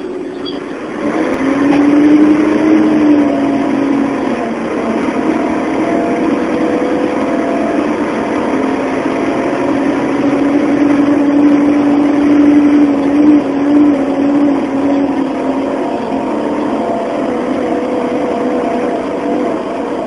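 Scania N113 double-decker bus's six-cylinder diesel engine running under load. It grows louder about a second in, and its pitch rises and falls a few times.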